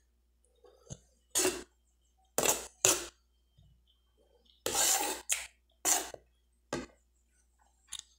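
Metal spoon scraping and clinking against a plate of cuscuz as it scoops up food: about eight short scrapes spread out, with quiet gaps between.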